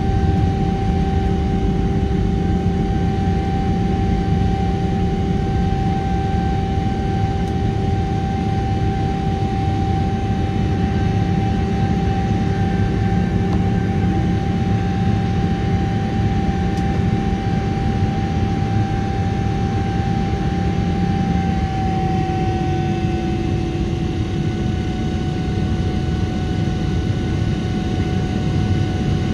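General Electric GE90-115B turbofan on a Boeing 777-300ER at high climb thrust, heard inside the cabin: a steady, dense roar with a clear fan tone running through it. About three-quarters of the way through, the tones drop slightly in pitch as the thrust is eased back.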